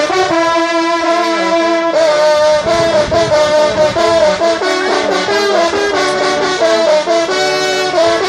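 Several trompes de chasse, the valveless coiled French hunting horns, sounding a hunting fanfare together. A long held chord for about the first two seconds gives way to a run of shorter notes changing pitch.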